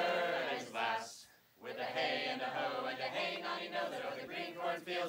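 A group of mixed voices singing together in unison, with a short break about a second and a half in before the group carries on.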